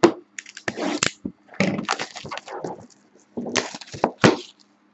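Cellophane shrink wrap crackling and tearing as it is stripped off a sealed box of trading cards, in a run of uneven crinkly bursts, the loudest near the end.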